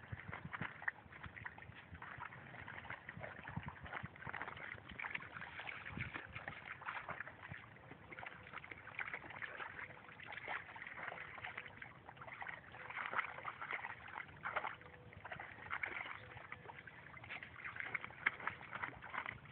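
Dogs wading in a shallow pond, the water sloshing and splashing in small irregular bursts.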